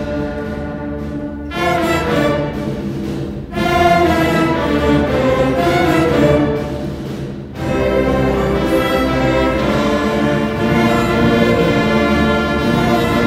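Orchestral music played by school instrumental groups, strings and brass together, in held chords that change phrase by phrase. The music swells about a second and a half in and again near four seconds, and dips briefly just past the halfway point before coming back in.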